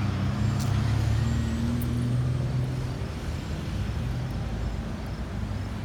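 Road traffic: a vehicle engine's low, steady drone over a wash of traffic noise, strongest in the first couple of seconds and then fading away.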